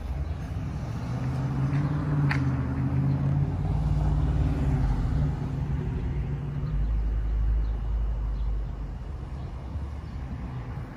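A motor vehicle's engine running close by on the street, a steady low hum that swells in, holds for several seconds and then fades away, as a car passing by would. A single sharp click sounds about two seconds in.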